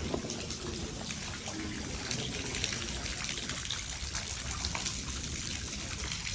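Rain falling, with many small drips and water trickling.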